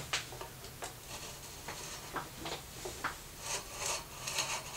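A string of short scrapes and rubs as the thin stainless steel cooking tray and its silicone end cap are worked into the glass tube of a GoSun Sport solar stove.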